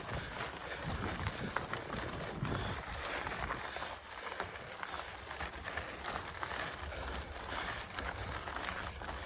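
Mountain bike being ridden on a dirt trail: tyre noise with scattered small clicks and rattles from the bike, over a low rumble.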